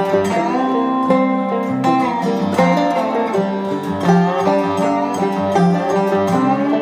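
Background music played on plucked string instruments, in an upbeat bluegrass style.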